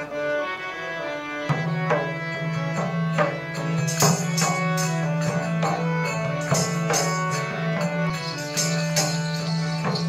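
Live Nepali folk dance music: a harmonium playing a melody in held notes, with a low drone note coming in about one and a half seconds in, and a hand drum joining with a steady beat.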